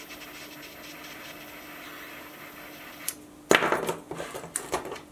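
Butane torch lighter's flame hissing steadily while it melts a frayed paracord end; the hiss cuts off about three seconds in. Just after, a quick run of sharp knocks and rattles as the lighter and tools are handled on the cutting mat.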